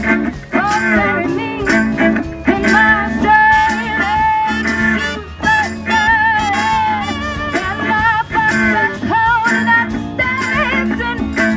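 Small live band playing: upright bass, fiddle, trumpet and guitar over a steady beat.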